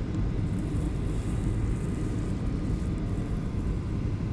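Steady low rumble of a Boeing 737 jetliner's engines and airflow heard inside the passenger cabin during the landing approach.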